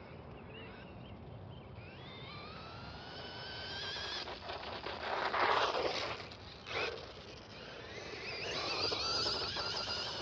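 WLToys L202 Pro brushless RC buggy's electric motor whining, rising in pitch as it speeds up, with a louder rushing noise around the middle and a second, shorter one soon after; the whine comes back near the end.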